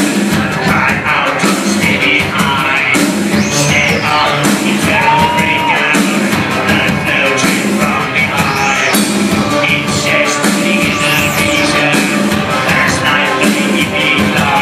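Industrial band playing live through a club PA, heard from the crowd: dense electronic music with a steady beat. High sweeping tones rise and fall a few times over it.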